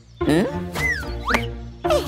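Children's cartoon soundtrack: background music under wordless cartoon character vocal sounds that slide up and down in pitch.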